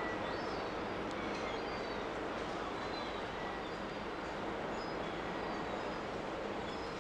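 Steady rumble and rush of ship machinery and moving water, with a low hum underneath. A few faint, short, high bird chirps sound now and then over it.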